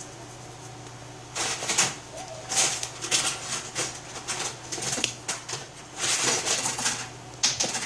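Irregular rustling and brushing, many short bursts one after another, from hands moving and touching each other and the clothing close to the microphone while signing, over a steady low electrical hum.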